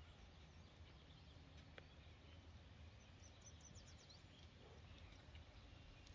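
Near silence: faint outdoor ambience with a low steady rumble, and a quick run of faint bird chirps about three seconds in.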